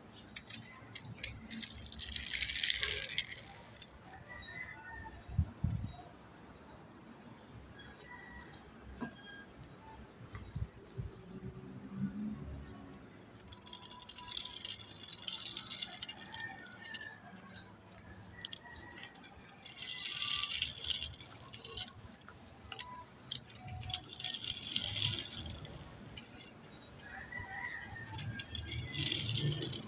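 A small bird calling: a short, high, rising chirp repeated about every two seconds. Between the calls come bursts of scraping and rattling as die-cast toy cars are rolled by hand over rough concrete and a plastic ramp.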